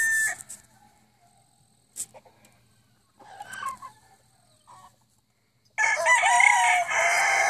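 Gamecock rooster crowing: the tail of one crow fades out right at the start, a brief soft call comes midway, and then a loud full crow begins about six seconds in.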